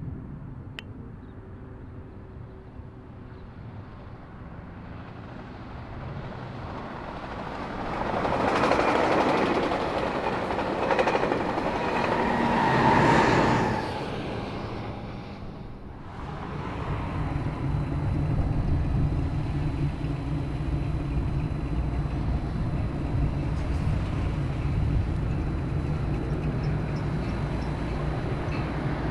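A train passing at speed: a rush of wheel and air noise swells and peaks about eight to fourteen seconds in, then falls away. From about sixteen seconds in, a steady low rumble of train noise takes over.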